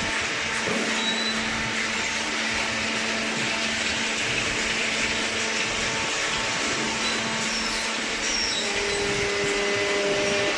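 Hydraulic cardboard baler's electric pump motor running steadily with a hum and whine. A second steady tone joins near the end.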